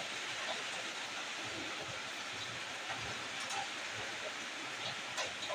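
Ingredients sizzling in a hot pan: a steady frying hiss with a few faint pops.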